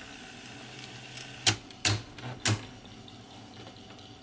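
Three sharp mechanical clicks from the Beocord 6000 cassette deck's transport mechanism as play is tried: one about a second and a half in, then two more within the next second. The transport fails to go into play, which turns out to be caused by a mispositioned reel brake.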